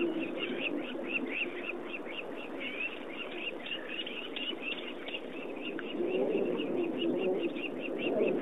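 Birds calling: a steady run of short, repeated chirps, several a second, over lower cooing tones.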